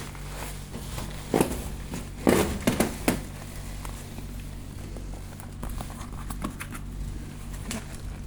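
Handling noises: a few sharp knocks and clicks, loudest in a cluster around two to three seconds in, with lighter crinkling and ticks, over a steady low hum.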